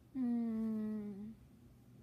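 A woman's voice giving one drawn-out hum, like a thoughtful "hmm", about a second long, its pitch sliding gently downward.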